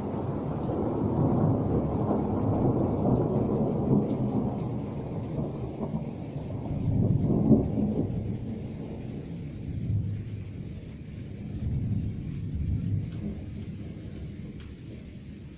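A long roll of thunder from a nearby thunderstorm: a deep rumble that builds over the first two seconds, swells again to its loudest peak about halfway through, then dies away in weaker rolls.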